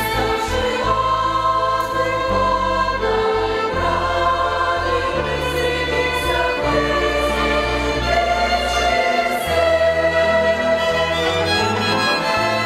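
Choir singing in sustained chords, accompanied by a violin ensemble.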